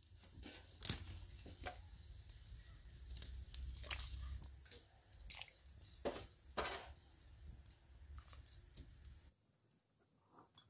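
Irregular crunching and tearing noises with scattered sharp clicks, as of chicken being pulled apart or eaten, over a low hum that cuts off about nine seconds in.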